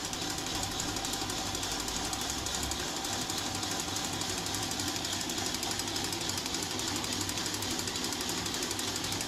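A slightly broken whisk beaten fast and steadily against a bowl, a continuous rapid rattle. Eggs are being whisked vigorously while hot milk is poured in to temper them.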